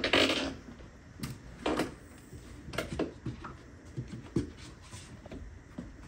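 Footsteps and a door being pushed open, with a wooden screen door swinging and knocking. A short rush of noise right at the start, then scattered knocks and clicks.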